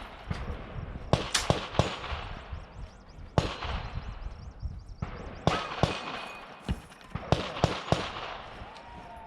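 Gunshots fired in quick strings of two to four, about a dozen in all, with short pauses between the strings.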